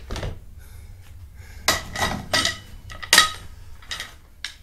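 Aluminium oar shaft clanking and clicking in its swivel oarlock mount as it is moved and fitted: about six sharp metallic knocks with a brief ring, the loudest about three seconds in.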